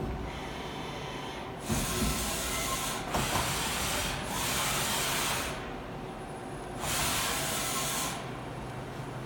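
Okuma V100R NC vertical lathe running with a steady hum, broken four times by loud hissing that lasts about a second each; the first two bursts start with a knock.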